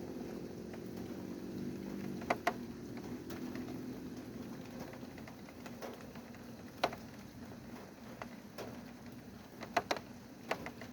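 Rain: irregular drops tapping sharply on a hard surface, a few of them loud, over a faint steady hiss. A low hum underneath fades out after about five seconds.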